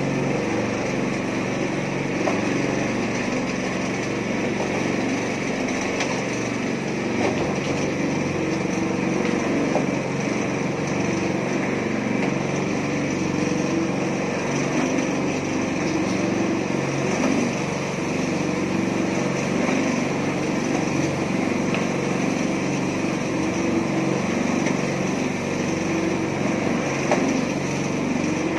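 Small petrol engine of a portable mini concrete mixer running steadily at constant speed.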